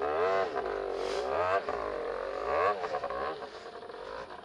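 Trail motorcycle engine revved up and down in quick bursts several times as the bike is worked through deep mud, then easing back to a lower, steadier run near the end.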